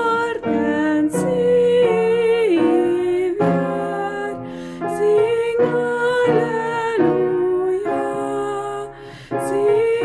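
A woman singing a slow song solo to upright piano accompaniment. She holds long notes with vibrato over sustained piano chords, with a short breath pause near the end.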